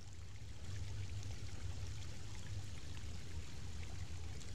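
River water running and trickling over rocks: a steady rushing hiss with a constant low rumble underneath.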